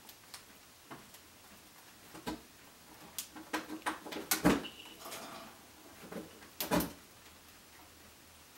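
Kitchen clatter from a person working off to the side: a run of knocks and clunks, like cupboard doors, drawers and dishes, loudest about four and a half seconds in and again near seven seconds, with a brief high steady tone around the fifth second.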